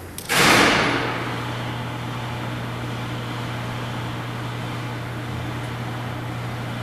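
Elevating observatory dome floor's drive starting up, with a loud rush of noise about half a second in, then running with a steady electric hum as the floor lowers.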